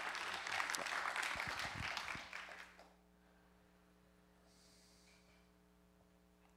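Audience applauding, dying away about three seconds in, with a few low thumps near its end. Then only a steady low electrical hum in the hall.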